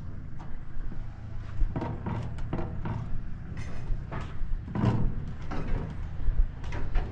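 Metal wheelbarrow pushed along asphalt, with a plastic five-gallon bucket loose in its tray: a steady low rumble under irregular clanks and rattles as the bucket and tray jolt over the road.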